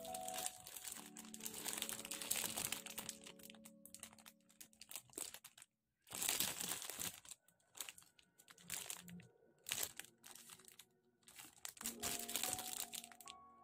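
Clear plastic bags holding plastic model-kit runners crinkling and rustling as they are handled and turned over, over soft background music that is heard at the start, for a few seconds early on and again near the end.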